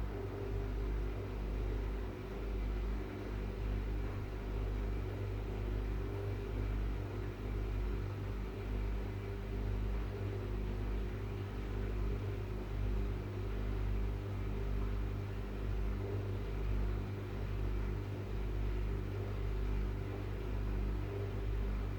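Arçelik Orbital washing machine spinning at a steady speed: a constant motor hum with a low drone from the drum.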